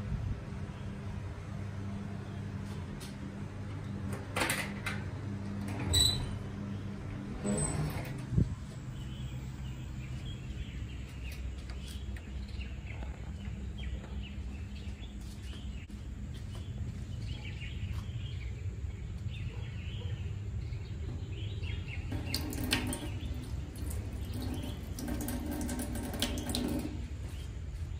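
Water running from a tap into a stainless steel wash trough near the end, over a steady low hum and faint birds chirping. A few sharp clicks and knocks come in the first several seconds.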